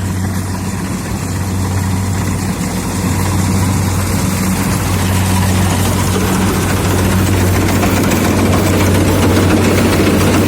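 Kubota combine harvester's diesel engine running steadily with a constant low hum, the rushing machinery noise above it growing louder about four seconds in.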